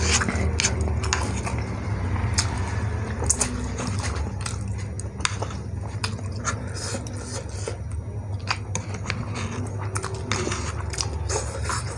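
Close-up eating of saucy instant noodles: chewing with many irregular, sharp wet mouth clicks, over a steady low hum.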